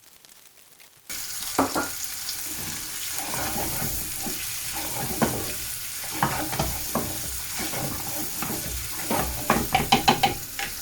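Paneer, peas and curry gravy sizzling in a pan while a spoon stirs, scraping the pan. The sizzle starts suddenly about a second in, and near the end comes a quick run of clinks from the spoon against the pan.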